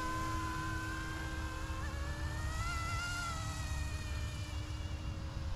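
Electric motors and rotor blades of a small YXZNRC F09 Black Hawk RC helicopter in flight, giving a buzzing whine. Its pitch rises about halfway through and then eases back down, over a low rumble.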